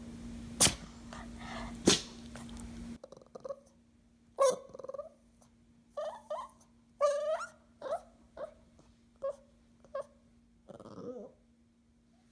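A dog making funny noises: two short, sharp snort-like sounds, then a string of about ten brief pitched whines and yips, one with a wavering pitch.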